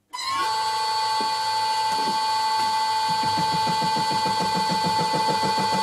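A vintage Karger lathe starts up with a high gear whine that dips slightly in pitch as it comes up to speed. From about two seconds in, an 80 mm face mill running as a fly cutter takes an interrupted face cut in metal, a regular tapping about six times a second.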